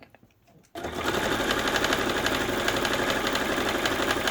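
Baby Lock sewing machine starting up about a second in and then running steadily at speed, a rapid even stitching rhythm, sewing a lengthened stitch corner to corner through cotton fabric and batting.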